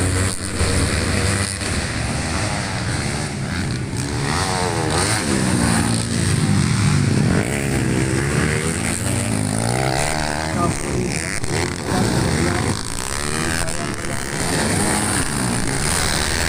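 Several motocross bikes racing over a dirt track, their engines revving up and dropping back again and again as they accelerate out of corners and shift. The overlapping engines rise and fall in pitch.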